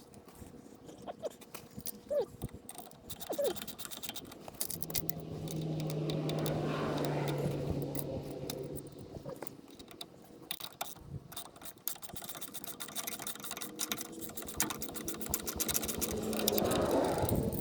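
Scattered clicks and metal-on-metal clinks of tools and parts being handled while a truck shock absorber is fitted, with a steady motor-like whir for a few seconds in the middle and a weaker one near the end.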